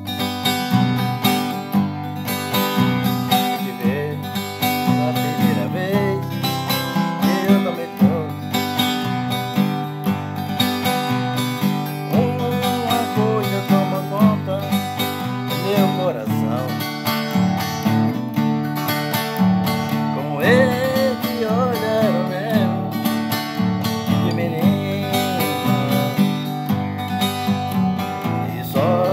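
Acoustic guitar strummed in a steady rhythm, changing chords, with a man's voice singing along in phrases.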